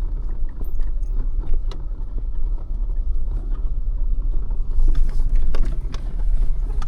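Jeep Wrangler crawling slowly over a rocky trail: a steady low rumble of engine and tyres, with scattered knocks and rattles as the wheels climb and drop over rocks.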